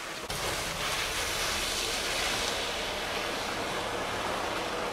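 Steady rushing hiss and low rumble of wind on the microphone outdoors, starting abruptly a moment in.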